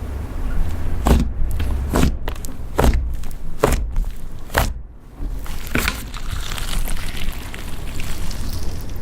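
Butter slime being pressed and squished by hand, with a soft thud about once a second.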